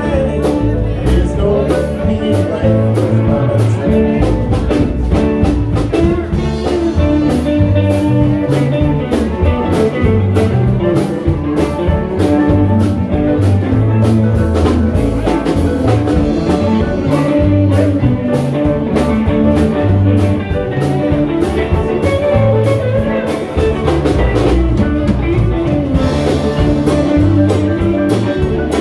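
Live band playing an instrumental passage: guitar over bass and drums with a steady beat.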